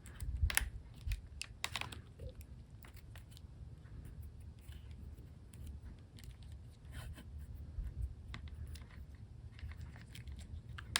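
Shinai string being threaded under the other strings and pulled tight by hand: scattered light clicks and rustles, busiest in the first second, over a low steady hum.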